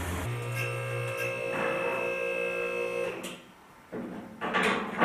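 A motor runs with a steady hum and several steady tones, then stops about three seconds in, followed by a few knocks and clatter near the end.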